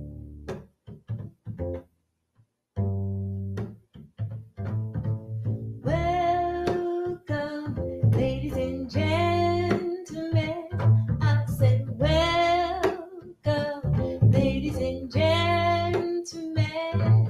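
Upright double bass playing short notes, with a brief pause about two seconds in. A wordless singing voice joins about six seconds in, singing long wavering notes over the bass.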